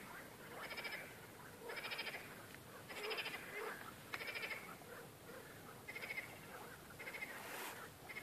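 Frogs calling in chorus: a string of short, rattling croaks, each made of rapid pulses, coming roughly once a second.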